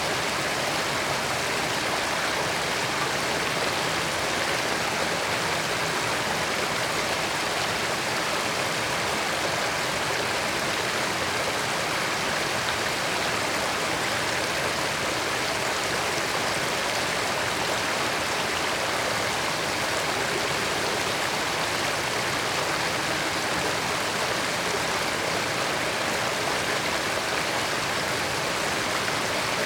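Creek water running steadily over rocks, a continuous even rushing and babbling without breaks.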